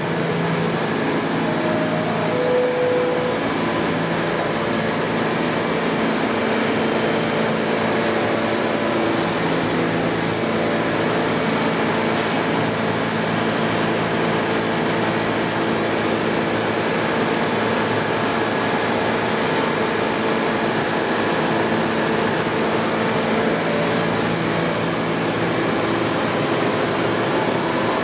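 R68 subway train pulling out of the station and rolling past along the platform: a steady rumble of wheels on rails, with several held tones over it.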